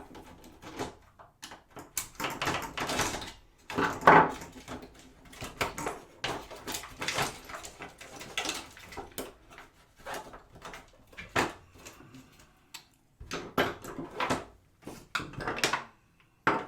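Plastic keyboard parts and small circuit boards being handled during disassembly: irregular clicks, knocks and rattles, with a louder knock about four seconds in.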